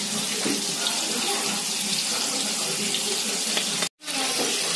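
Masala-coated fish frying in hot coconut oil in a kadai: a steady, even sizzle. The sound cuts out for a moment about four seconds in.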